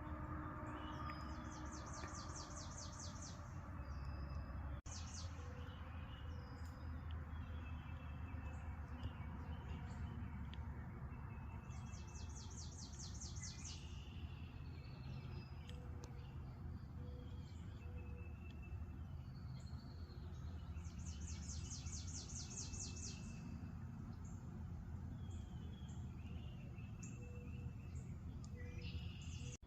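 Outdoor birdsong: a high, rapidly pulsed trill lasting about two seconds, repeated three times roughly nine seconds apart, among scattered short chirps and whistles, over a steady low background rumble.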